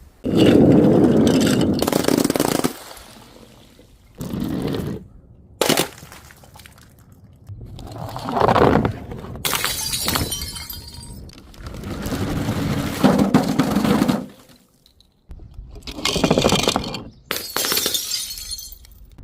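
Glass bottles breaking and shattering in a series of separate crashes and crunches, with bright tinkling of glass pieces. The crashes are cut together back to back, some with sudden silences between them.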